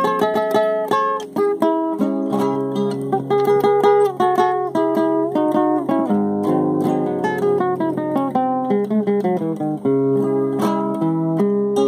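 Classical guitar played solo: a run of plucked melody notes over bass notes, the instrumental introduction before the singing comes in.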